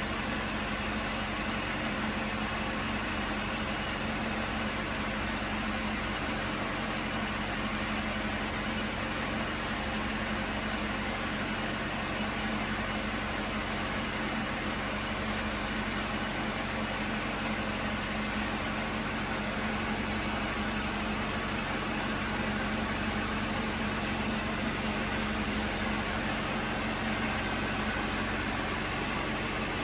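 A vehicle engine idling steadily, with a thin, steady high-pitched whine over it.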